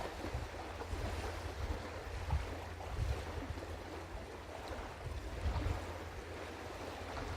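Wind buffeting an outdoor microphone: an uneven low rumble in gusts over a steady rushing noise.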